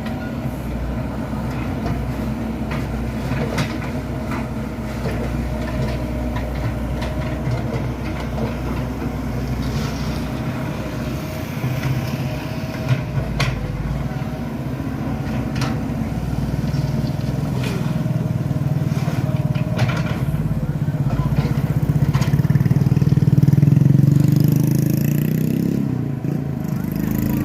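Komatsu PC78 excavator's diesel engine running, with scattered knocks and clanks; the engine works harder and grows louder in the second half, then eases off near the end.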